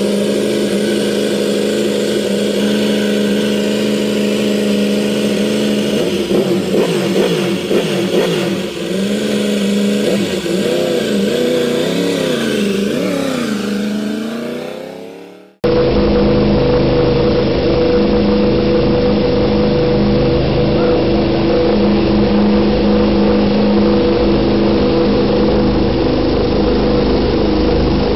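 Yamaha YZR-M1 inline-four MotoGP engine running at steady revs, then blipped up and down from about six seconds in, the revs falling away as it shuts off about fifteen seconds in. A second recording of a YZR-M1 engine then cuts in suddenly, running at a steady pitch.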